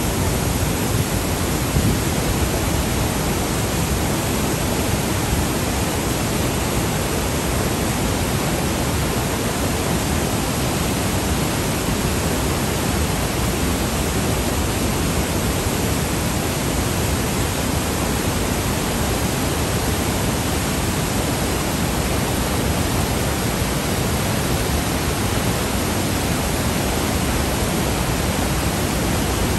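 The Rhine Falls, a large river waterfall: a mass of water pouring over rock and churning in white rapids, making a loud, steady rushing noise.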